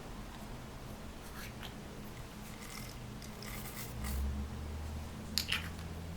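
Slime being worked by hand: soft sticky squishes and crackles in a few short runs, with two sharper pops near the end.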